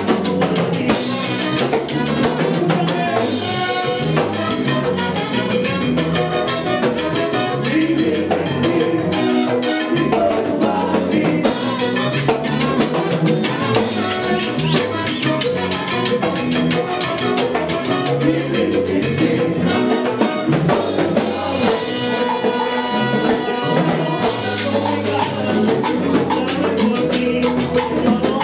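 Salsa orchestra playing, with a drum kit and percussion keeping a dense, steady dance beat under the band.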